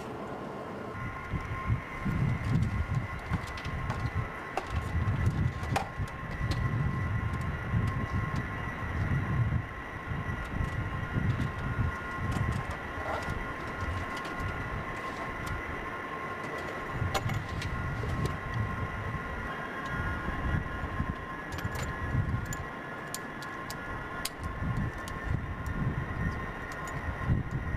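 Steady high-pitched turbine whine from idling F-16 jet engines, with a low rumble coming and going underneath and a few scattered clicks.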